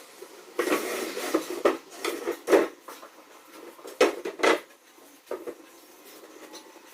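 Irregular clattering knocks of hard objects being handled, in two bursts: a run of knocks starting about half a second in, then a few louder ones around four seconds in.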